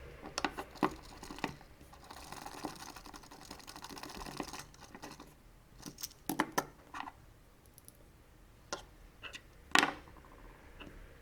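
Scattered small clicks and taps of hard parts being handled, in a few short clusters, the loudest knock near the end.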